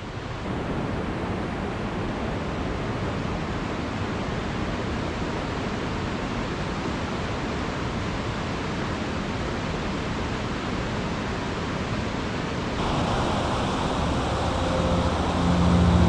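Steady rush of a creek in flood at a waterfall, swollen by snowmelt and heavy rain. About thirteen seconds in it grows louder, with a deeper rumble near the end as the water is heard up close.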